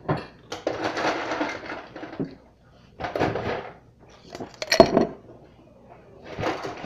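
Mealtime table sounds: a ceramic mug set down and plates and cutlery clinking, with one sharper knock about five seconds in.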